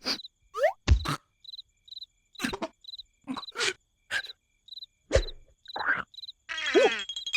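Animated cartoon soundtrack: cricket chirping, about two chirps a second, under a string of short sharp cartoon sound effects and character noises. Near the end comes a wavering, pitched cry.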